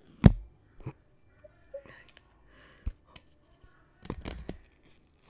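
White plastic AirPods charging case handled right against a microphone: sharp plastic clicks and taps, the loudest just after the start, with a quick cluster of crackling taps about four seconds in.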